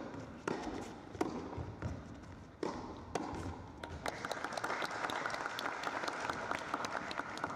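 A few sharp tennis-ball strikes off racket and court in quick succession, then light applause from a small crowd in an indoor hall, starting about halfway through, as the point ends.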